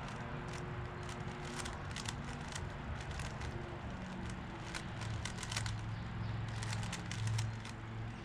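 Rubik's Cube being turned rapidly in a speed-solve: quick, irregular plastic clicks of the layers snapping round, over a low steady hum.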